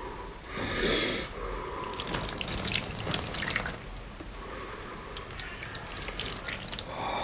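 Water splashing and dripping, with a gush about a second in followed by many small irregular drips and splashes.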